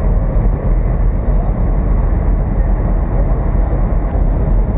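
River ferry underway: a steady low rumble of engine and moving water, with wind on the microphone.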